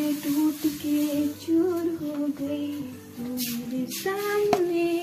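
Background music: a woman singing a slow melody in long, held notes. A sharp knock sounds over it near the end.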